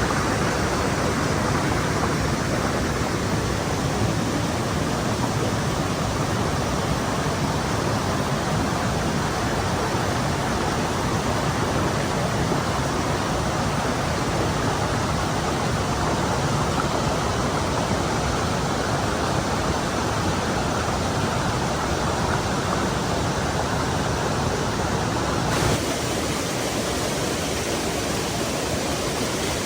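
Stream water rushing steadily over rocks. About 25 seconds in, the rushing changes abruptly and drops slightly in level.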